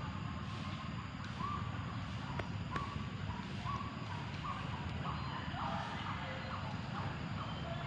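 A bird calling over and over in a series of short notes at one pitch, roughly one or two a second, over a steady low rumble of wind on the microphone.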